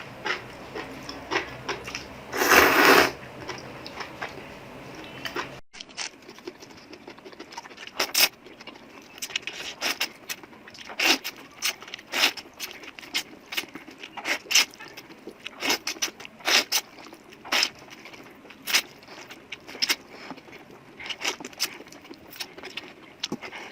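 Close-miked eating: chewing fried noodles with a string of short, sharp clicks and crackles, and a louder burst of noise about two and a half seconds in. A low background hum cuts off suddenly about five and a half seconds in.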